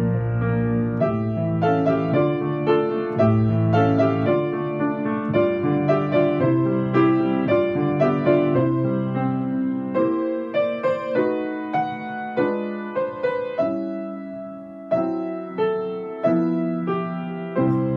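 Yamaha grand piano played solo, a melody over held bass notes. About ten seconds in the playing turns sparser and softer, with separate chords struck and left to ring.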